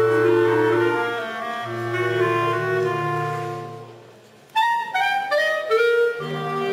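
A wind quintet playing: held notes over a sustained bass note, the phrase dying away about four seconds in, then after a brief pause a new phrase starting with short detached notes.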